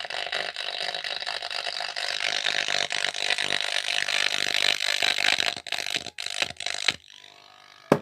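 Test music played through a home theater amplifier board into a bare speaker driver, coming out harsh and distorted, the cracked sound of a channel whose amplifier IC has failed. It cuts off abruptly about seven seconds in, and a sharp click comes just before the end.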